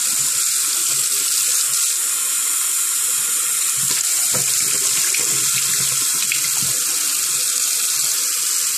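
Bathroom sink tap running steadily, the stream splashing over a plastic toner waste bin being rinsed under it and draining into the basin.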